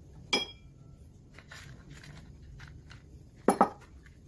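Handling at an automatic bread maker: one ringing metallic clink about a third of a second in, then two sharp clicks close together near the end as the machine's plastic raisin dispenser tray is handled.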